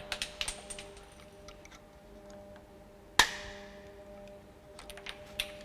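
Small clicks of a Stanley knife blade prising out the plastic pip covers on a door hinge, with one sharp snap about three seconds in.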